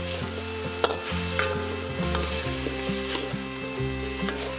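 Beef and eggplant stir-fry sizzling in a metal wok while a metal spatula turns it, with scraping clicks of the spatula against the pan; the sharpest clack comes a little under a second in.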